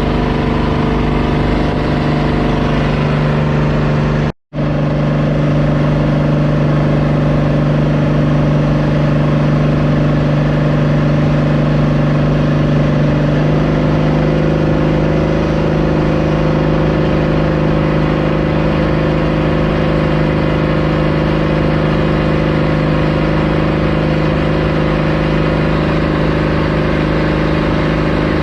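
A motorboat engine running steadily at constant speed, with a brief dropout to silence about four seconds in and a slight change in engine note about halfway through.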